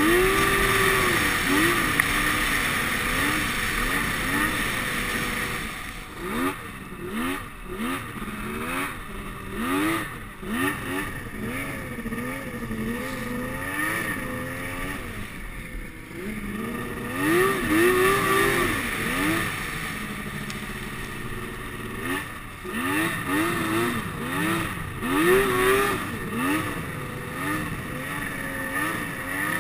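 Snowmobile engine running under way, its pitch climbing and falling back again and again as the throttle is opened and eased off, with the strongest surges near the start and again in the second half.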